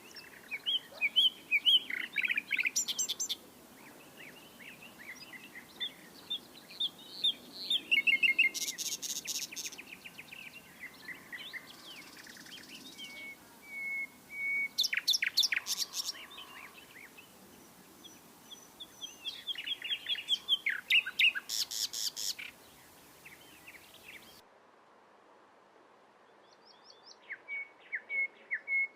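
Common nightingale singing in separate phrases, one every few seconds: fast runs of repeated notes and trills, some phrases holding a clear steady whistled note, with short pauses between.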